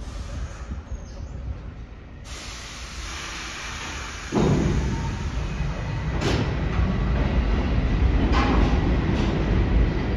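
R68 subway train pulling out of the terminal: a hiss starts about two seconds in, then the traction motors and wheels suddenly get much louder about four seconds in, rumbling steadily. Sharp knocks of wheels over rail joints follow every second or two.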